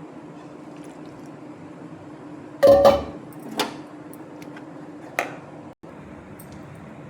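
Kitchen utensils clattering: one loud clatter about two and a half seconds in, then two lighter knocks, over a steady low hum.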